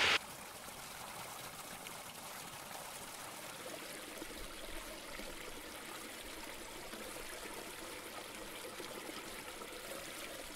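Faint, steady trickling of shallow pond water among shoreline rocks.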